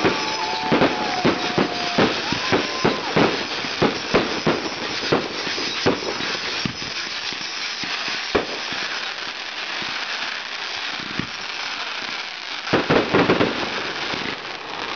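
Consumer fireworks going off: rapid sharp bangs from aerial shells with a few steady whistles in the first few seconds, then a stretch of crackling, and another quick cluster of bangs near the end.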